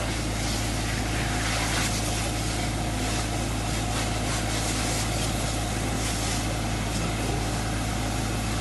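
Steady low engine-like drone with a continuous hiss over it, unchanging throughout.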